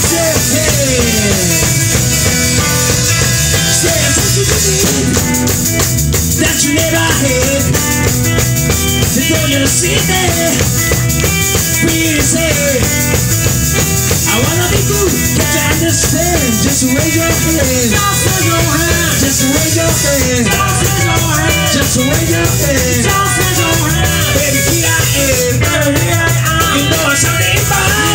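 Live soul band playing loud: drum kit, bass and electric guitar, with a male singer's voice over the band.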